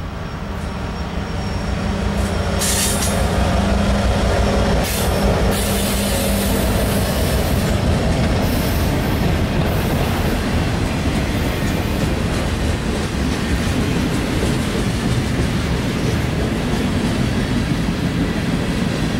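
CSX diesel-hauled freight train passing close by. The lead locomotive's engine running grows louder over the first few seconds as it goes by, then comes the steady rumble and clatter of freight cars rolling over the rails, with a few short high squeals of wheels on rail about three to eight seconds in.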